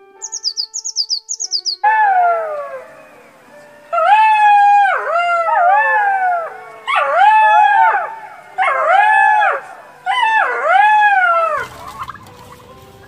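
Red fox calling: about five loud wailing cries, each rising and then falling in pitch. A quick run of high blue tit chirps comes before them at the start, and a noisy hiss takes over near the end.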